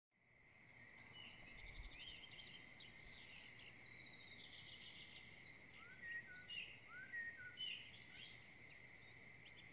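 Faint outdoor ambience fading in: a steady high-pitched drone, like insects, with birds chirping short rising notes, several of them in quick pairs from about six seconds in.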